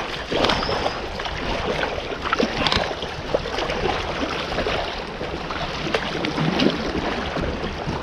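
Rushing water of a small river rapid around a boat running through it, with irregular splashes breaking the water.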